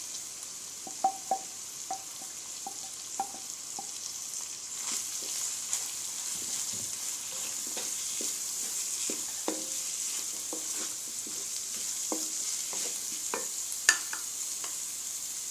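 Minced beef and chopped onions frying in oil in a metal pan, a steady sizzle, while a wooden spoon stirs and knocks against the pan. There are scattered light knocks throughout and a sharper one near the end.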